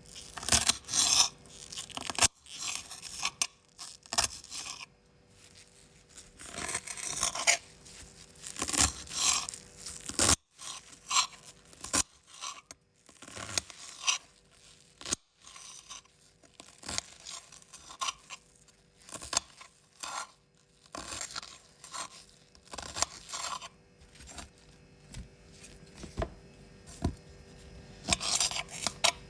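Knife cutting through raw vegetables, with crunching slices and scrapes at an uneven pace and a few quick runs of chopping.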